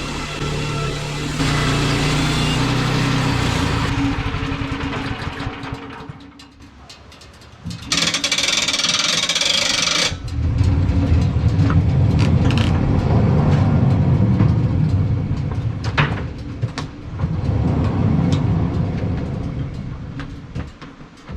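Woodland Mills portable band sawmill's gas engine running. It eases off about four seconds in, and a two-second burst of hiss follows. It then runs heavily again with scattered knocks and clicks, dying away near the end.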